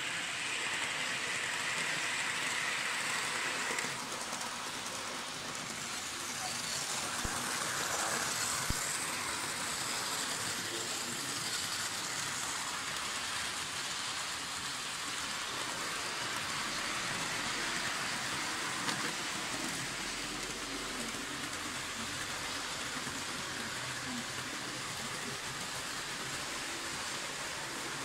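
Märklin model train running on the layout's metal track: a steady rolling noise with a few small clicks.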